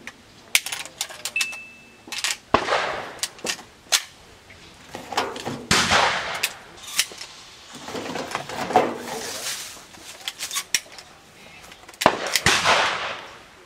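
Shotgun shots at a clay-target range: many short sharp cracks, and four louder reports spread through, each trailing off in a long rolling echo.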